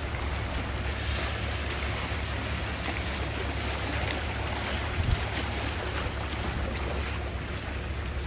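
Calm sea waves washing steadily, with wind rumbling on the microphone and one short low thump about five seconds in.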